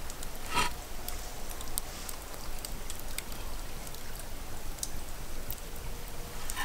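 Marinated pork ribs sizzling on a wire grill over charcoal, with many small scattered crackles and pops. A short louder sound comes about half a second in.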